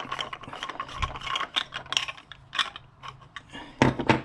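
Plastic union nut being unscrewed from a grey PVC 1.5-inch true union check valve: rapid clicking and scraping of the threads, then two louder knocks near the end as the plastic parts are put down on the bench.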